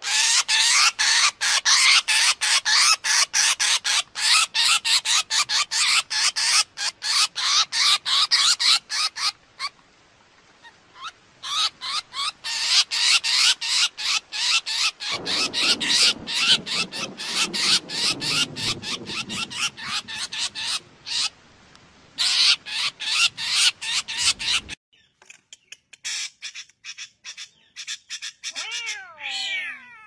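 Drongo calls: a fast, dense run of sharp repeated notes, several a second. In the middle a lower, drawn-out falling call sounds beneath them. About 25 seconds in, the calls drop abruptly to a much fainter level.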